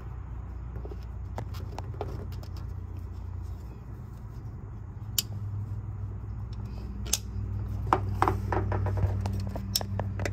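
Sharp clicks and light metallic rattles from hands working the distributor and spark plug wires of a 201 cubic inch flathead six, coming more often in the second half, over a steady low hum.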